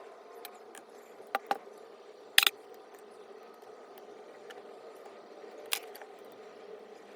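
Sharp clicks and clacks of small hard parts and tools being handled during disassembly of a reciprocating saw: two about a second and a half in, the loudest a moment later, another near six seconds. A steady hum runs underneath.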